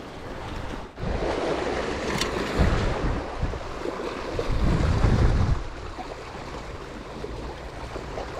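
Sea surf washing in, with wind buffeting the microphone. The loudest rush comes about four and a half seconds in and eases about a second later into a steadier, quieter wash.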